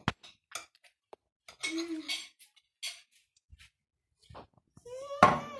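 A fork clinking and scraping on a small ceramic plate in a series of light, separate clicks as a child eats. A child's voice is heard briefly near the end.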